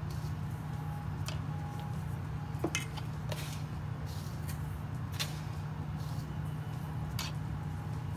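Plastic measuring cup scooping granulated sugar from a jar and tipping it into a steel bowl: a few short scrapes and clicks, spread out over the seconds, above a steady low hum.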